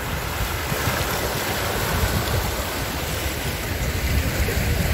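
Sea waves washing against a rocky shoreline, a steady rush of surf, with wind buffeting the microphone.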